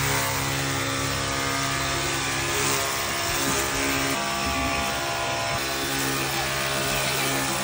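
Ryobi cordless drill running continuously at one steady speed, a constant motor whine that holds the same pitch throughout.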